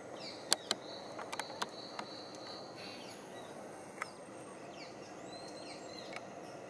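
Tropical forest ambience with birds calling in short, repeated chirps and a steady high whistling tone for about two seconds near the start. Several sharp clicks stand out in the first two seconds, with one more about four seconds in.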